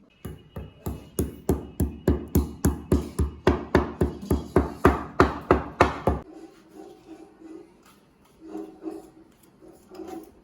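Pepper seeds being pounded to crush them: a steady run of about twenty knocks, roughly three a second, that stops about six seconds in. Fainter, irregular knocks and rubbing follow.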